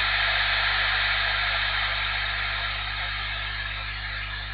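Static hiss from an AnyTone CB radio's speaker with the squelch open on a weak, distant station coming in at the noise floor, its voice buried and unreadable in the noise, over a steady low mains hum.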